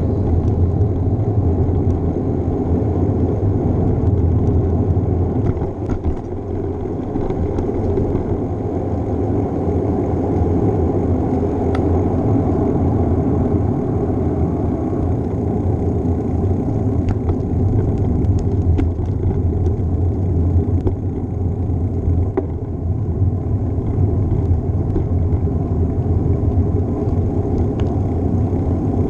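Steady wind rush and road rumble of a moving bicycle, caught on a GoPro's microphone, with a few faint clicks.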